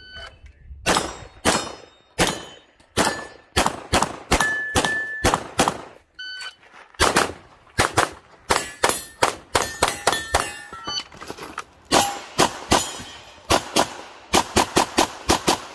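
Strings of rapid pistol shots, with the short ring of hit steel targets among them.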